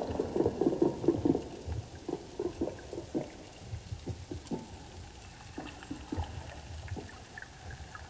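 Underwater recording: an irregular run of short pops and clicks, several a second, fading out about halfway through, over faint low thuds.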